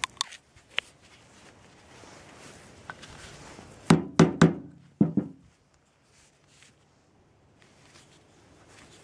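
Sharp knocks on a wooden block as a shotgun shell fitted on a hand-made wooden stick tool is struck, working the primer: a few light clicks at the start, then about five quick loud knocks a little after halfway.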